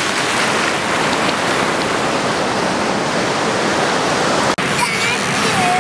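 Churning surf rushing close by, a loud, steady wash of water noise, broken by a brief cut a little over four and a half seconds in.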